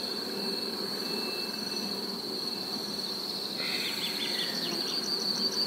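Honeybees buzzing around an opened hive as a comb frame is lifted out, under a steady high-pitched insect trill. A few short scraping sounds come in about three and a half seconds in.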